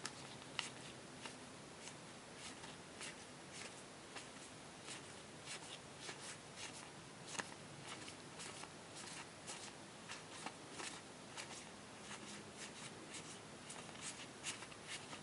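Faint rustling of a hand of Yu-Gi-Oh trading cards being flipped through, the cards sliding over one another with light, irregular clicks.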